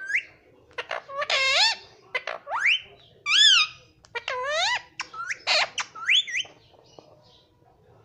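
Indian ring-necked parakeet giving a rapid series of short squeaky calls and quickly rising whistles, stopping about six and a half seconds in.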